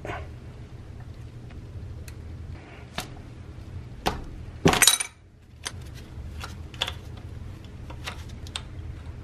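Adjustable wrench clinking and clicking on the metal fuel-line fitting of a Saab 900S fuel pressure regulator as the fitting is loosened, with one louder clatter about halfway through. A steady low hum lies underneath.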